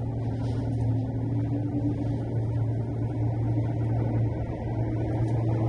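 Poma-Otis cable-drawn automated people mover running along its tunnel guideway, heard from inside the car: a steady low hum with a higher whine that rises slightly in pitch over the first few seconds, then holds.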